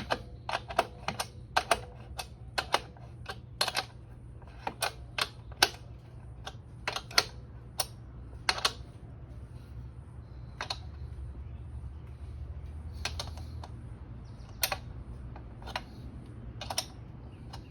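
Irregular sharp clicks, a few a second at first and sparser in the second half, as a hand tool turns the drive-belt tensioner adjuster on a Zero SR motorcycle's rear wheel. A faint steady low hum runs underneath.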